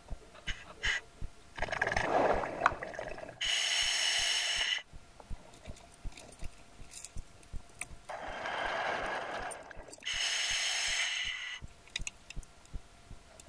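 Scuba diver breathing through a regulator in a full-face mask, heard from inside the mask: two breaths, each a lower rush of air followed by a higher, banded hiss. Faint small clicks run throughout.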